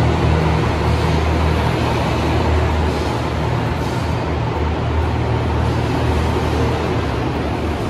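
Yufuin no Mori diesel railcar train moving past along the platform. It gives a steady low engine drone over a broad running rumble.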